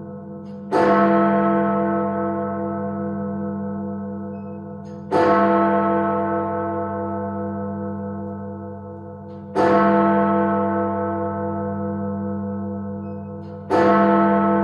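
Big Ben, the great hour bell of the Palace of Westminster clock tower, tolling: four single heavy strokes about four and a half seconds apart. Each one rings on with a deep hum and fades slowly into the next.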